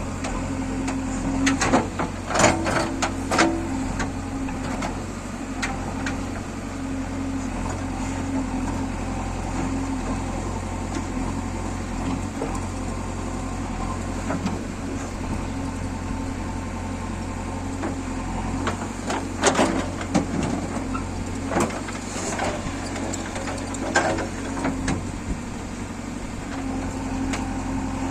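JCB 3DX backhoe loader's diesel engine running steadily under work, with sharp knocks in clusters near the start, about two-thirds of the way through and again a little later.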